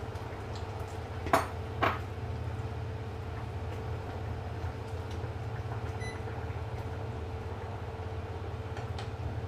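Kitchenware knocking sharply twice in quick succession about a second and a half in, over a steady low hum, as potatoes are added to a pot of chicken curry and stirred with a ladle.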